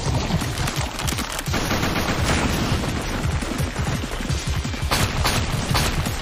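Anime fight sound effects: a rapid, continuous barrage of hard impacts, like a volley of projectiles slamming into a wall.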